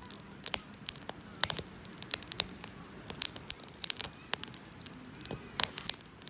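Wood campfire crackling, with irregular sharp pops and snaps several times a second.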